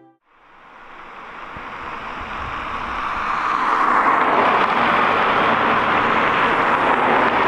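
Steady rushing noise of road traffic beside the roadside, swelling up over the first few seconds and then holding steady.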